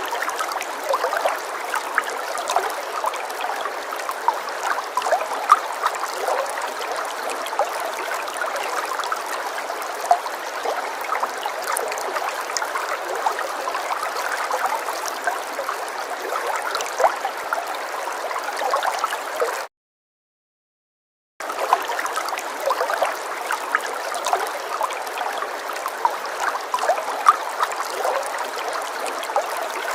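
Falling water splashing and trickling steadily, a dense patter of small splashes with no deep rumble. It cuts out completely for about two seconds, a little past the middle, then resumes.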